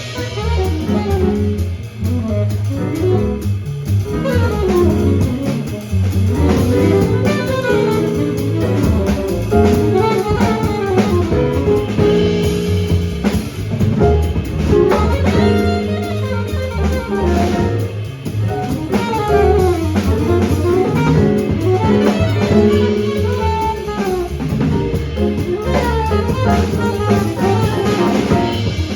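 Live jazz quartet playing: saxophone carrying a melody over piano, bass and drum kit.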